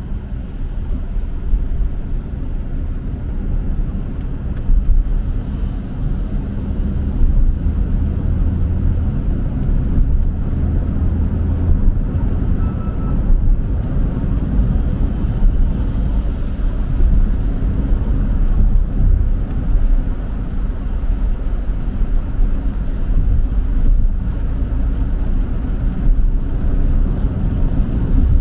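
Steady low road rumble heard inside a moving car's cabin: tyres running on a wet, rain-soaked highway.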